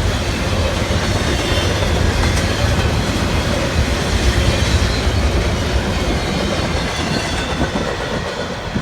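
Freight train cars rolling past, steel wheels clattering over the rail joints with a deep rumble, easing off slightly near the end.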